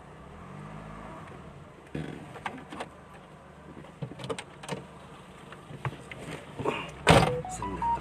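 Car running at low speed, heard from inside the cabin, with scattered clicks and knocks. A loud thump comes about seven seconds in, followed by a few short beeps at different pitches.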